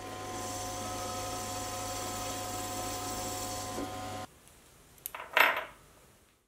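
Sieg C3 7x14 mini lathe running steadily while its tool turns down the head of a steel cap head screw, a constant motor hum with a faint cutting noise; it cuts off abruptly about four seconds in. About a second later comes a brief metallic clink, the loudest sound here.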